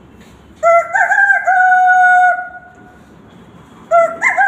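A girl imitating a rooster with her voice: a long cock-a-doodle-doo crow about half a second in, and a second crow starting near the end.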